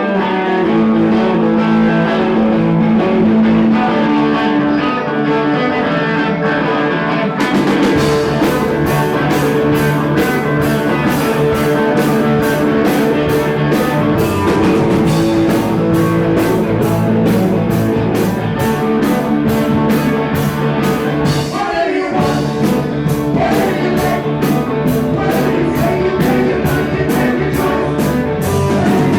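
Live rock band playing a song: guitar alone at first, then drums come in with a steady beat about seven seconds in, with a brief break a few seconds before the end.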